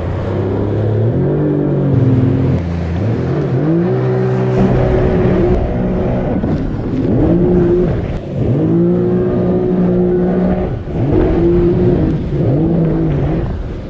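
Yamaha WaveRunner jetski engine revving up and easing off several times as the throttle is worked at speed.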